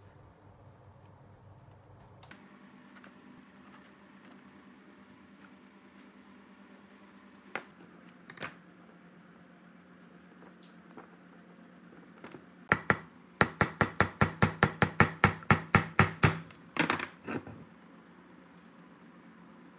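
Hand tool working on the air compressor's metal cylinder head and valve plate: scattered clicks and knocks of parts being handled, then near the end a rapid even run of sharp metallic taps, about six a second for some four seconds.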